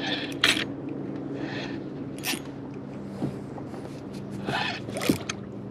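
Short scuffs and rustles of gear being handled aboard a fishing kayak, a few seconds apart, over a steady low hum.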